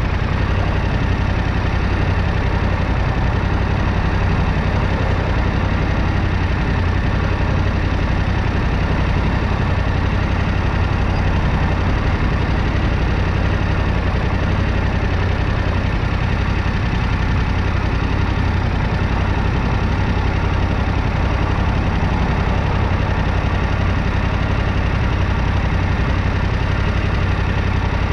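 Yamaha Ténéré 700's parallel-twin engine idling steadily while the bike stands stopped.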